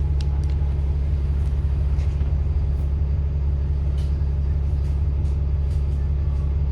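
Bus engine running steadily with a deep, even hum, heard from on board, with a few brief clicks and rattles.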